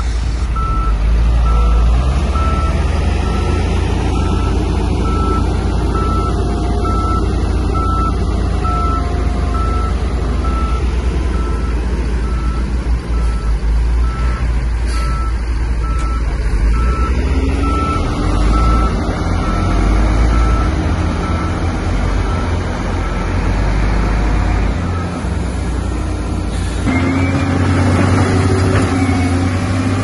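Heavy earthmoving machine's diesel engine running, with a reversing alarm beeping at a steady, even pace. The beeping stops about 25 seconds in, and soon after the engine grows louder.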